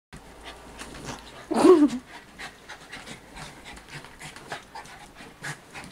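Small dogs panting hard in quick, irregular breaths while one mounts and wrestles the other, with a brief, louder cry that falls in pitch about a second and a half in.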